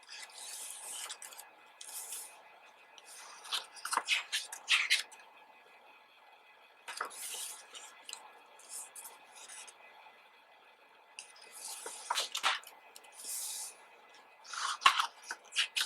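Pages of a photobook being turned and handled: paper sliding and rustling in several bursts every few seconds, with sharp crackles and taps.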